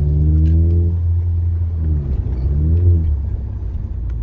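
Car engine revving over a steady low rumble. The revs climb through the first second, then drop and rise again about two to three seconds in.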